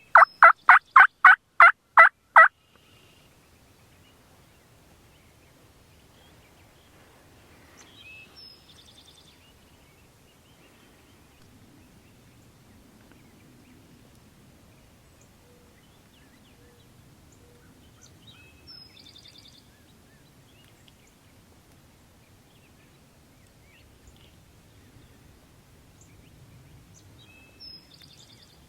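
A loud run of about a dozen turkey yelps, about four a second, ending about two and a half seconds in. After that there is faint woodland background with a few brief, faint high bird calls.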